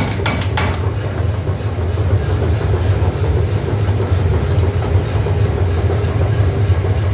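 Forging hammer blows, about three a second, stop about a second in. The forge's heavy machinery keeps running with a steady low hum and rumble.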